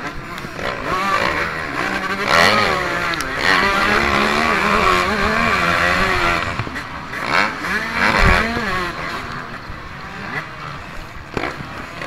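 Motocross bike engine revving hard and rising and falling in pitch as the throttle is worked through turns and up a climb, picked up by an onboard action camera.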